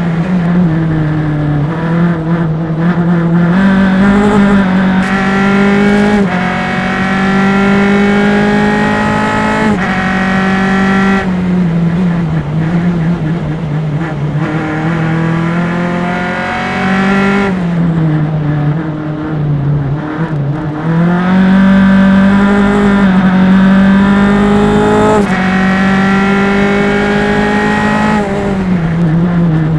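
Single-seater formula race car's engine at full throttle, heard through engine-mounted mics: the pitch climbs through the gears with sharp drops at each upshift, about six, ten and twenty-five seconds in. Between roughly eighteen and twenty-one seconds the note falls and breaks up as the car brakes and downshifts for a corner, then it climbs again.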